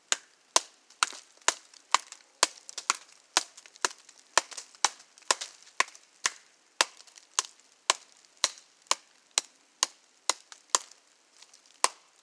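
Old Hickory butcher knife's 7-inch high-carbon steel blade chopping into a hand-held stick to notch it: a steady run of sharp wooden chops, about two a second.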